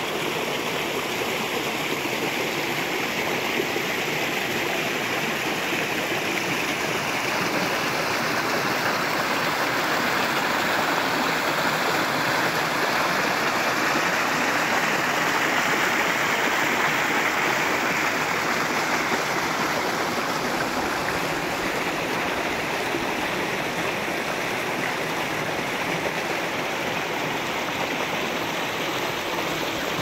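Mountain stream rushing over rocks and small waterfalls into clear pools: a steady rush of water, a little louder about halfway through.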